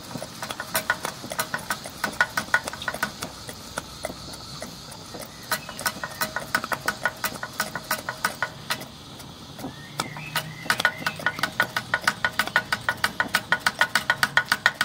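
Stuart Victoria model horizontal steam engine running on steam, its rapid beats and clicks coming unevenly with two short lulls, then settling into an even beat of about five a second near the end.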